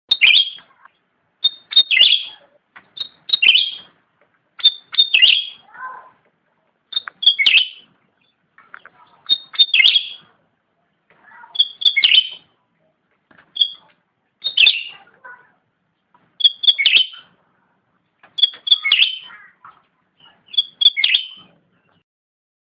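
Black-headed bulbul (cucak rante) singing: a short phrase repeated about every two seconds, each a few quick high notes followed by a louder falling chatter.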